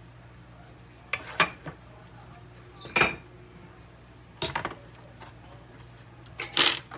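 Metal cutlery clinking against a stainless steel saucepan in four short clattering bursts, roughly every one and a half to two seconds.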